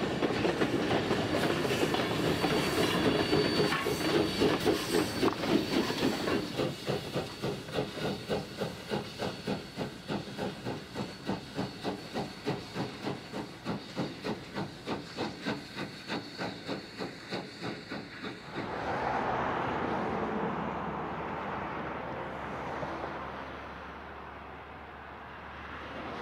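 Essex Terminal Railway No. 9 steam locomotive working hard, its exhaust chuffing in an even beat of about two to three a second, with steam hissing from the cylinder cocks. Near the end it gives way to a fainter, steady rushing sound.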